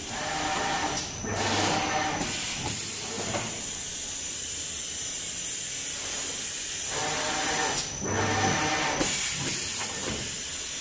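Automatic front-suction sheet paper feeder running, a steady air hiss from its suction and blower, swelling twice into louder whirring and air noise about seven seconds apart.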